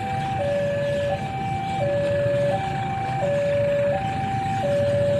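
Railway level crossing warning alarm sounding its two-tone electronic signal, a high note and a lower note alternating about every three-quarters of a second, warning that a train is approaching the closed crossing. A low rumble runs underneath.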